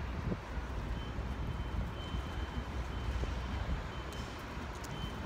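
A truck's reversing alarm beeps about once a second over the steady low rumble of street traffic.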